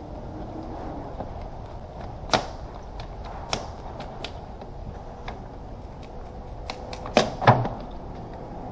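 Scattered sharp clicks and knocks of plastic cowl trim being handled and unclipped in a car's engine bay, the loudest two close together near the end, over a steady low background hum.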